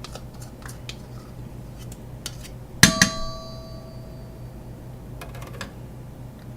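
Kitchen dishes being handled: a few light clicks, then a sharp clang about three seconds in with a second hit right after, ringing out clearly for about a second. A steady low hum runs underneath.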